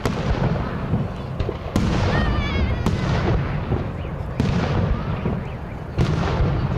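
Aerial firework shells bursting overhead in a display: about four sharp booms, one to one and a half seconds apart, over a continuous rumble of further bursts and their echoes.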